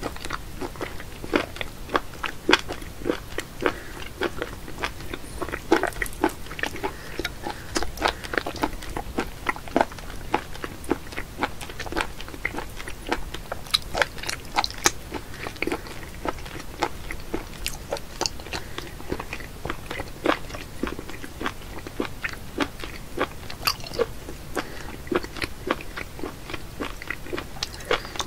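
A person chewing raw octopus: a steady run of sharp mouth clicks, a few each second.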